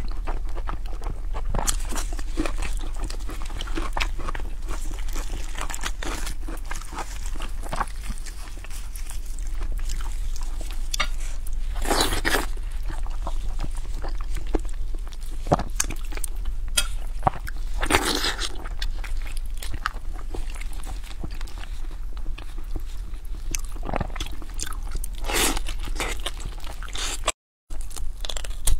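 Close-miked chewing and biting of sticky braised fatty pork: wet mouth and smacking sounds with sharper clicks now and then, over a steady low hum. The sound cuts out for a moment near the end.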